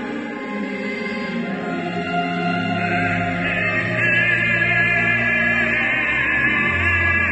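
Mixed choir singing a sacred choral piece in sustained notes, swelling louder about three seconds in with wavering high voices.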